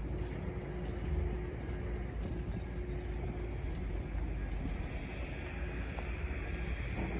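Heavy diesel engine of construction machinery running steadily with a low rumble.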